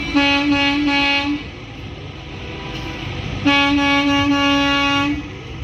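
A vehicle horn blowing two long single-pitch blasts a couple of seconds apart, the second one longer, over a steady low background rumble.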